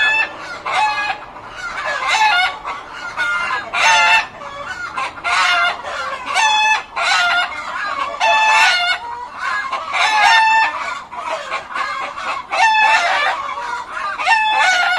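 A flock of chickens clucking and calling loudly in a coop, many birds at once in a constant run of short, overlapping squawking calls.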